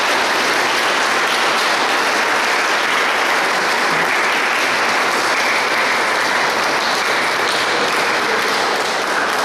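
A crowd applauding, steady and sustained clapping.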